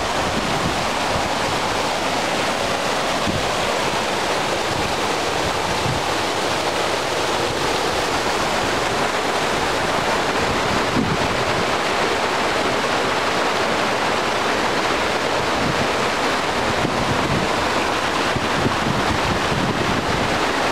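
Steady, loud rush of a mountain stream cascading over boulders below a waterfall, with wind buffeting the microphone.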